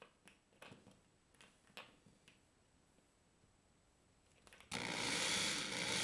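A few light clicks and taps, then about three-quarters of the way in a corded electric drill starts suddenly and runs steadily, boring into drywall to make the hole for a plastic wall anchor.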